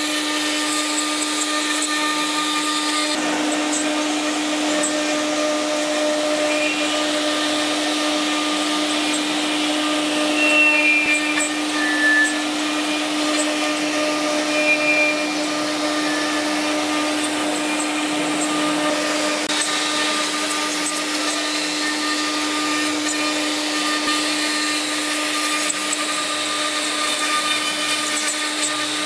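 CNC router spindle running at a steady whine while its bit carves a wood relief panel, with the hiss of cutting. A few short higher-pitched tones come through near the middle.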